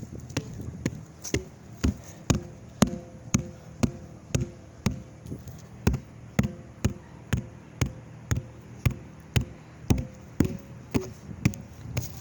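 Sharp knocks at an even pace of about two a second, with a faint steady tone underneath.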